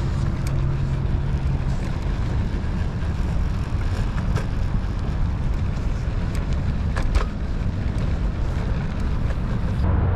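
Riding noise from a Lime electric scooter rolling along a paved path: a steady low rumble from the wheels and wind on the microphone. A few sharp clicks come from bumps in the pavement, the loudest about seven seconds in.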